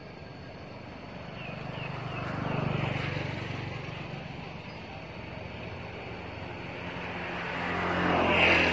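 Motor vehicles passing by: engine noise swells and fades about three seconds in, then a second, louder pass builds near the end.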